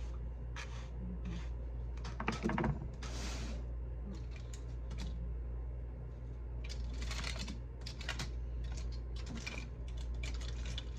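Irregular small clicks and rustles of hair and hair-cutting tools being handled, over a steady low hum, with a short voice sound about two seconds in.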